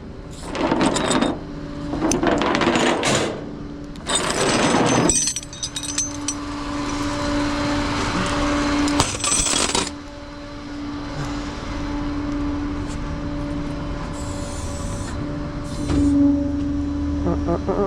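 Tow-truck gear being stowed: three bursts of metal clattering and jingling in the first five seconds, then a steady mechanical hum from the tow truck holding one pitch, swelling briefly near the end.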